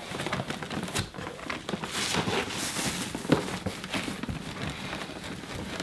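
Rustling and scraping as a Vaonis Stellina smart telescope in its fabric cover is worked out of its foam-lined cardboard box, with a couple of knocks.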